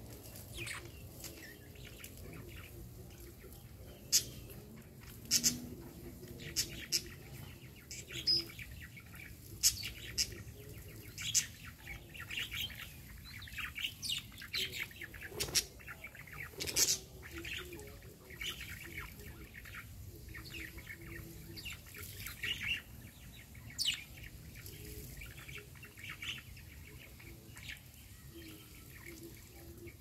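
Wild birds chirping in a garden: many short, sharp chirps and calls in irregular bursts, busiest in the middle and thinning out toward the end, over a faint low steady background noise.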